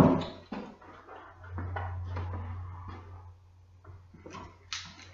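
A sharp knock at the start, then scattered lighter clicks and knocks of objects being handled and moved about, with a low hum swelling for a second or so in the middle.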